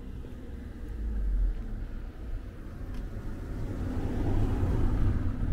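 A car driving past, its engine and tyre noise swelling over the last two seconds, over a low rumble.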